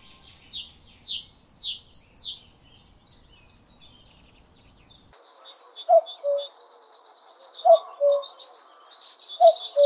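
Forest birdsong: a bird's song of quick sweeping whistled notes repeated about twice a second, then about halfway through a sudden switch to a fuller chorus of many chirping birds, with a lower two-note call sounding three times.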